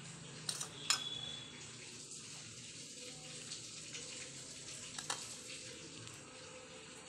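Faint steady background hiss with a few sharp light clicks, one about a second in followed by a brief high ring, and another a few seconds later.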